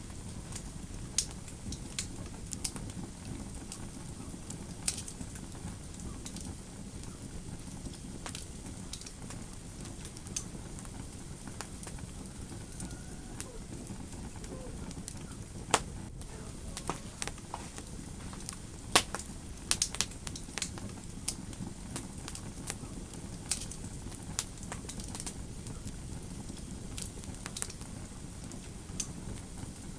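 Fireplace fire crackling: a steady low rumble of burning with irregular sharp pops and snaps throughout, the loudest pops a little past halfway and again a few seconds after.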